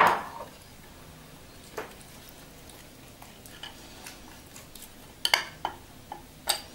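Metal spoon clinking and scraping against a ceramic bowl as yogurt marinade is scraped out onto raw chicken, in a few sharp clicks near the end. A single louder knock comes right at the start.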